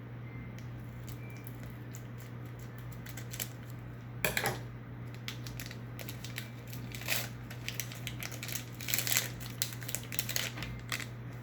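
Foil wrapper of a Pokémon booster pack crinkling and tearing as it is opened, with the cards inside rustling and flicking; the crackles come in irregular bursts, loudest about four seconds in and again around seven and nine seconds. A steady low hum runs underneath.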